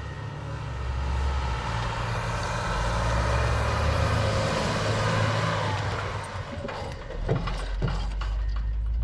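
Heavy snowplough truck's diesel engine running steadily under load while clearing deep snow, with a broad rushing hiss over it. Several sharp knocks come in the last two or three seconds.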